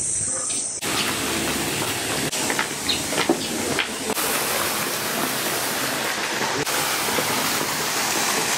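Steady hiss of rushing, splashing water from a pond fountain, starting abruptly about a second in, with a few short sharper sounds around the middle.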